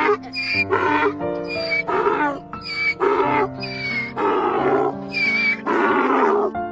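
A donkey braying, a run of repeated calls, over background music with held chords. The braying stops near the end.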